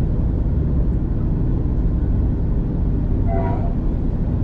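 Steady low rumble of a V/Line passenger train running along the track, heard from inside the carriage. A brief, higher-pitched tone sounds about three and a half seconds in.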